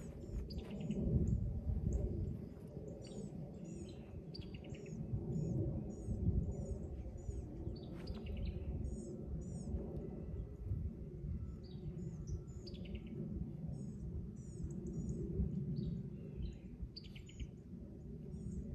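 Small birds chirping in quick runs of short, high calls, over a low, uneven wind rumble on the microphone.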